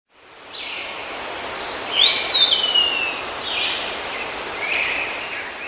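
Nature-ambience sound clip: several bird calls over a steady outdoor hiss, fading in at the start. About two seconds in, one call rises and falls and another slides down in pitch, and higher, shorter calls come near the end.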